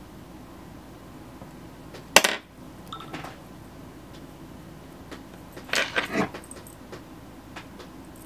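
Small hard objects clinking and clattering as they are handled: one sharp clack about two seconds in, then a short clattery rattle a little past the middle, over quiet room tone.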